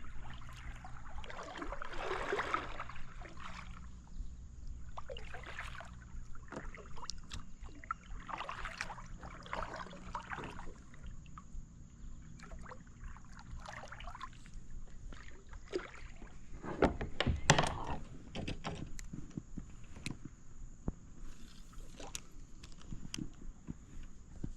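Water lapping and small knocks and rustles of handling aboard a fishing kayak, with a louder noisy burst about 17 seconds in.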